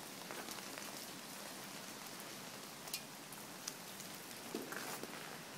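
Steady, faint hiss of freezing rain falling on icy ground and trees, with two light ticks near the middle.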